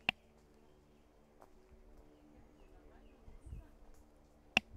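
Dry forest ambience on a hiking trail: two sharp clicks, one right at the start and one near the end, with a bird's faint short chirps repeated several times in between and a low thump about three and a half seconds in.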